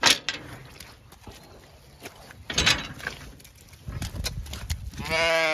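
A gate's sliding metal bolt clanks as it is drawn, then sheep walk through squelching mud. Near the end a Zwartbles ewe gives one bleat.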